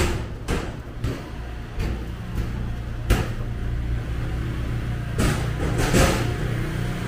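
Low, steady motor rumble with about seven sharp knocks and clatters scattered through it, the loudest right at the start and about six seconds in.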